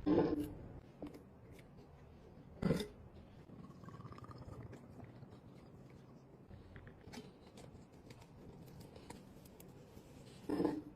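Household containers and packages being handled and set down: three solid knocks, at the start, a little under three seconds in and near the end, with light clicks and rustling in between.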